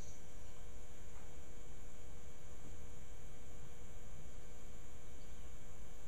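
Steady electrical hum with a constant hiss and low rumble; no distinct sounds rise above it.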